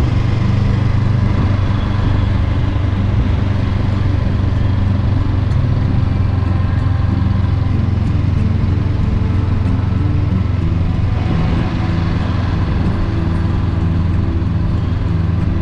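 Honda CB500X's parallel-twin engine running steadily while the motorcycle cruises, heard from the rider's seat with wind and road noise over it. The pitch shifts a little about two-thirds of the way in.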